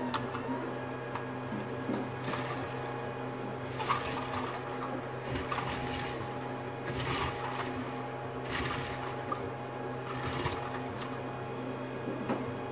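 Filament spool turning freely on a 3D-printed roller bearing, giving a soft rolling rush that comes round about every second and a half, over a steady machine hum.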